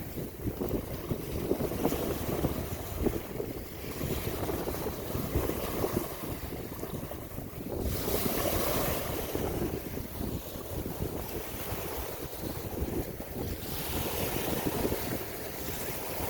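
Wind and surf rushing, with wind buffeting the microphone; the noise swells and eases about every six seconds.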